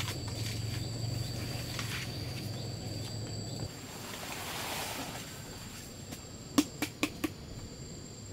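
Outdoor ambience of insects singing in a steady high-pitched drone, with a low hum underneath that stops a little over halfway through. Near the end come four sharp clicks in quick succession.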